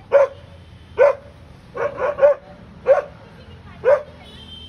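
Dog barking in single loud barks about once a second, with a quick run of three about two seconds in, aimed at a cat.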